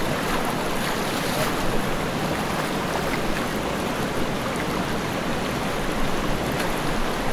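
Fast-flowing river water rushing steadily, an even wash of water noise.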